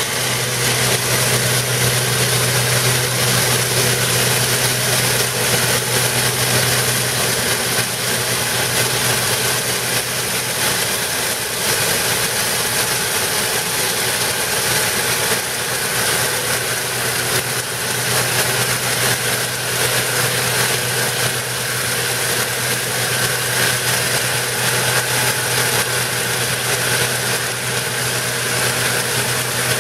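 Stripe Hog line-removal truck at work: its engine and high-pressure pump run steadily under a loud, even hiss from the water-jet head and its vacuum hoses as it strips road paint.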